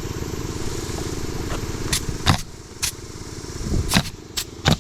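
Pneumatic roofing nailer firing several sharp shots in the second half as the starter shingles are nailed down, over the steady running of the air compressor's engine.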